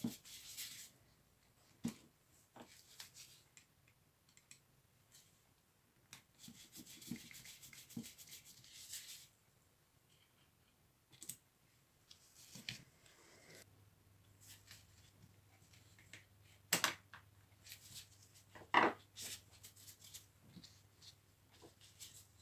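Hand work on small tool parts: two stretches of scraping or rubbing, scattered light clicks, and two sharper knocks near the end.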